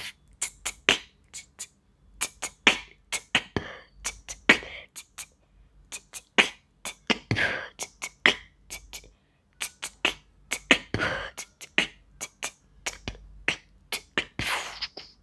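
Vocal beatboxing with a hand cupped over the mouth: a fast, irregular run of sharp mouth-made clicks and pops, broken by several longer hissing sounds.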